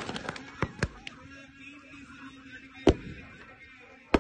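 A handful of sharp bangs at uneven intervals, the loudest a little under three seconds in, between quieter background noise.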